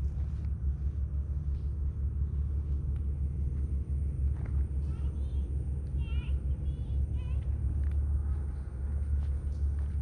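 Steady low outdoor rumble, with a bird giving a short series of quick chirps about five to seven seconds in.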